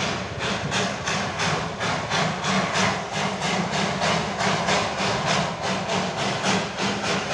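Narrow-gauge Darjeeling Himalayan Railway steam locomotive chuffing as it approaches, an even beat of about four exhaust puffs a second over a steady low rumble.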